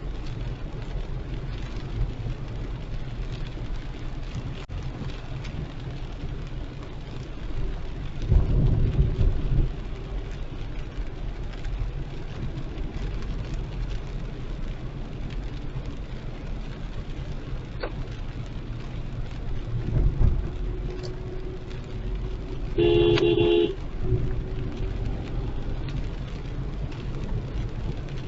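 Car driving on a wet road in heavy rain: a steady low rumble of tyres and rain with a hiss over it, swelling louder twice, about eight and twenty seconds in. Near the end a car horn sounds once, for under a second.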